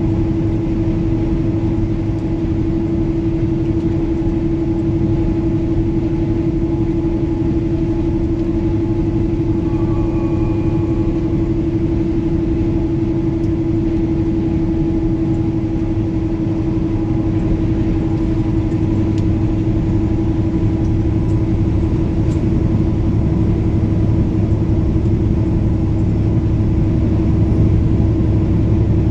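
Semi-truck's diesel engine and tyres droning steadily inside the cab at highway speed, with a steady hum running through the rumble; a little louder near the end.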